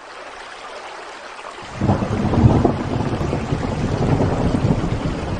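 Heavy rain falling steadily, then about two seconds in a long low rumble of thunder comes in and rolls on under the rain.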